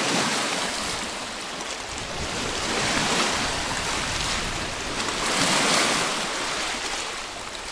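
Lake waves washing against a rocky shore, a steady rush that swells and fades every two to three seconds.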